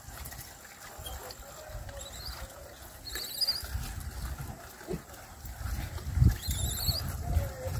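Wind rumbling on the microphone outdoors, with uneven low thumps, the strongest about six seconds in. Short high, wavering chirps come twice, about three seconds in and near the end.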